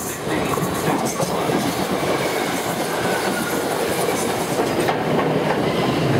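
Steam locomotive 60163 'Tornado', an A1 Pacific, and its coaches coasting past at speed with steam shut off: a steady rolling rush of wheels on rail as the engine and then the carriages go by.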